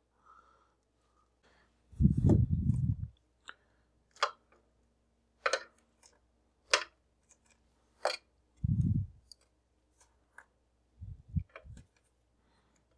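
Small parts being handled on a workbench: scattered sharp clicks and taps, with a few short low thuds near the start, in the middle and near the end.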